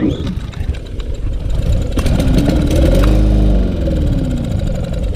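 Briggs & Stratton 625EX 150cc mower engine being pull-started on carburetor cleaner; about two seconds in it catches briefly, its pitch rising and then falling away as it dies. It fires but will not keep running, which the owner puts down to something stuck in the carburetor or fuel line.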